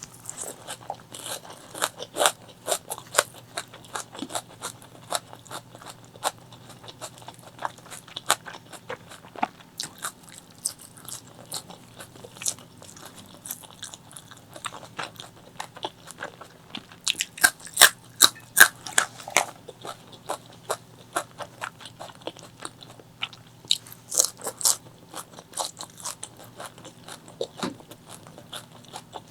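Close-miked chewing and crunching of spicy chicken liver, gizzard and white rice: a run of wet mouth clicks and crunches, with louder, denser bites a little past the middle and again near the end.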